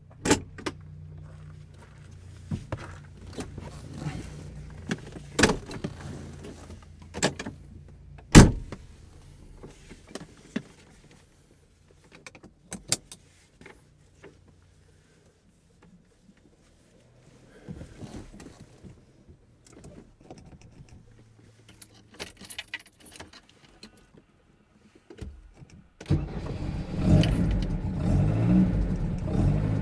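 Keys jangling, with clicks and knocks inside a car cabin over a low hum, and a loud thump about eight seconds in. Near the end the Lada VAZ 2103's 1600cc four-cylinder engine with twin Weber DCOE 40 carburettors starts and keeps running.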